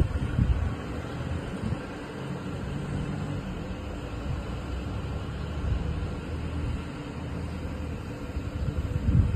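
Air-cooled scroll chiller with Danfoss scroll compressors running, giving a steady low hum. Gusts of wind rumble on the microphone near the start and again near the end.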